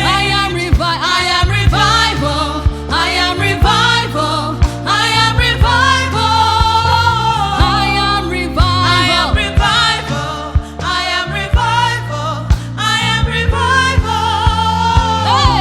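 Gospel choir singing with wordless or unclear vocal lines over a band, with steady bass notes and regular drum hits.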